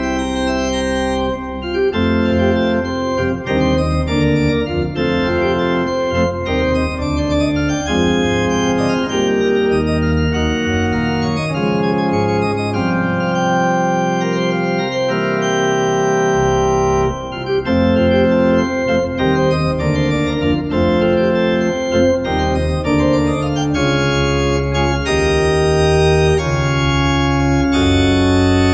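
Organ music: full sustained chords over deep bass notes, changing every second or two at a steady stately pace.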